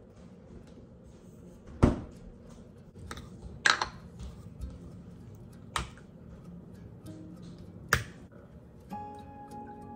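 Sharp clicks and knocks, four of them about two seconds apart, as plastic bottles and a glass are handled and set on a stone kitchen countertop, the last one the snap of a plastic creamer bottle's cap. Background music comes in near the end.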